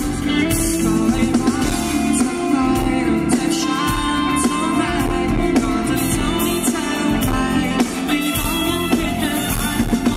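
Live pop-rock band playing, with a male voice singing in Thai over electric guitar, bass and drums.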